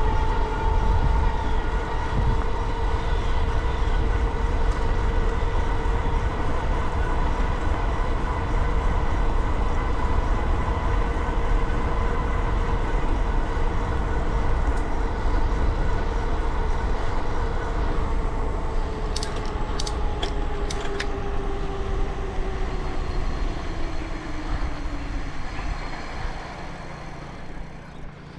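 A vehicle on the move: steady wind and road rumble with a whine at two pitches, which falls in pitch and fades over the last ten seconds as it slows. A few sharp clicks come about two-thirds of the way in.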